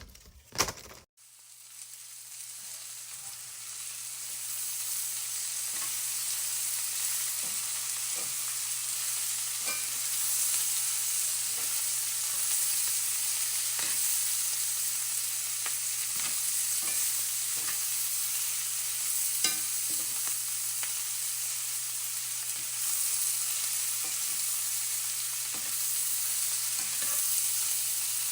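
Cabbage sizzling as it is stir-fried in a hot pan, with a utensil clicking and scraping against the pan now and then. A brief clatter comes right at the start, then the sizzle builds over the first few seconds and holds steady.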